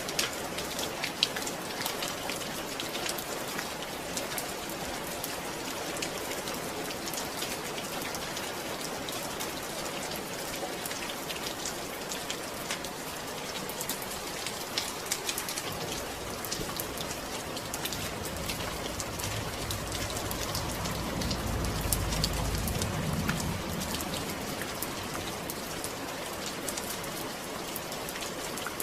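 Steady rain falling, with many sharp drop ticks over an even hiss. A low rumble swells and fades about two-thirds of the way through.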